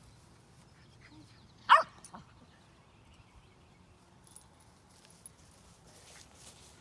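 A Shetland sheepdog barks once, short and loud, a little under two seconds in.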